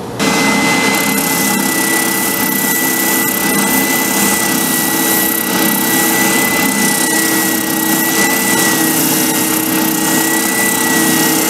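Benchtop oscillating spindle sander running steadily with a constant high whine while an oak hammer handle is pressed against its sanding drum, shaping the handle's end to fit the hammer head.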